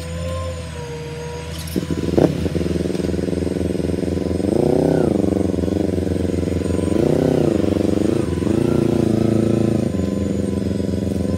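Sport motorcycle engine started with a short crank about two seconds in and catching. It is then revved twice, each rev rising and falling, as it rides off, and settles to steady running.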